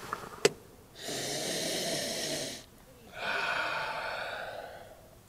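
A sharp metallic click as the hinged lid of an aluminium Bialetti moka pot snaps shut, followed by two breathy hisses of about a second and a half each, the second fading away.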